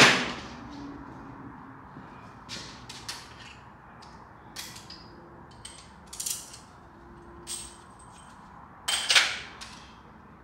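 Sharp metallic clicks and clanks of hand tools working on an LS7 V8's cylinder heads as they are taken off. The strokes come at irregular intervals: the loudest right at the start, a close pair near the end.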